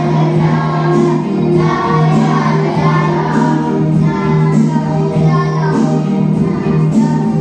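A group of young children singing a nursery song together, with an electronic keyboard accompaniment.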